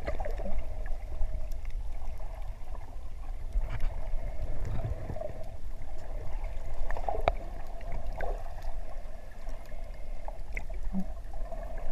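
Muffled water noise heard underwater: a steady low rumble with scattered faint clicks and ticks.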